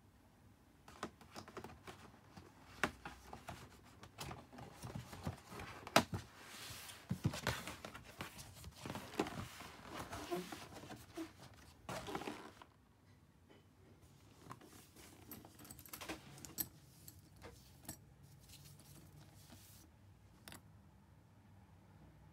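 Cardboard gift box being handled and opened: rustling, scraping and sharp taps as the printed sleeve and lid are worked, busiest through the first half. Then quieter scattered clicks as the bag's metal zipper pulls are handled.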